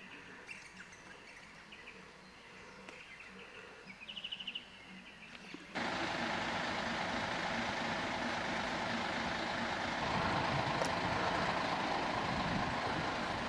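Birds chirping faintly, with a quick trill of about eight notes around four seconds in. Almost six seconds in, a steady, much louder rushing noise starts abruptly and keeps going.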